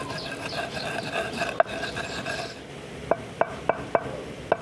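Roasted alum being ground to powder in a mortar with a pestle: a rasping, rubbing grind through the first half, then sharp knocks of the pestle, about three a second.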